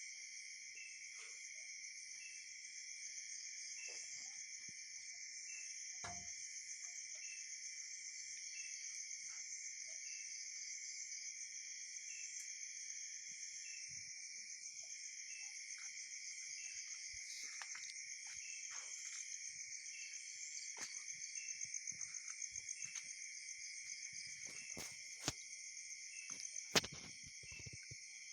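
Steady night-time chorus of crickets and other insects: continuous high-pitched trilling with a fainter chirp repeating about once a second. Scattered sharp clicks or knocks break in, the loudest near the end.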